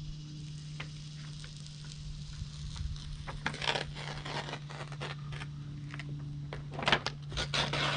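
Release paper being peeled off the adhesive back of a SeaDek EVA foam sheet: crackling and rustling in clusters from about three and a half seconds in, over a steady low hum.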